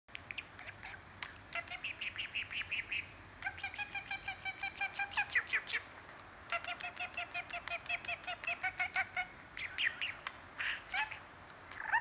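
Budgerigar chattering: quick runs of short chirps, clicks and warbled notes in several bouts, with brief pauses between them.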